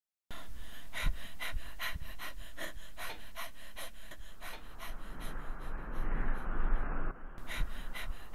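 A man's voice panting hard and fast, about three breaths a second, as a running cartoon character. A louder, rougher rush of breath noise comes from about five to seven seconds in.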